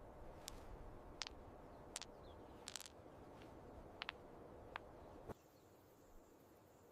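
Faint, sharp clicks at irregular intervals over a low hiss. About five seconds in the sound cuts abruptly to a quieter background with a faint steady high whine.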